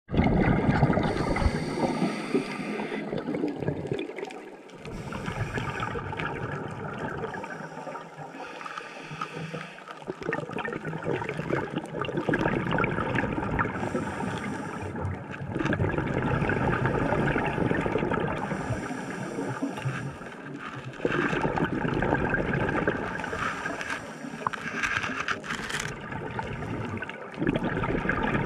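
Underwater sound as recorded by a diver's camera: a scuba diver's breathing through a regulator, with bubbling exhaust that swells and fades every few seconds over a steady water hiss.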